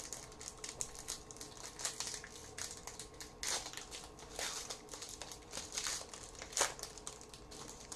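Trading cards and their foil pack wrapper handled close to the microphone: a string of light crinkling and rustling with small clicks.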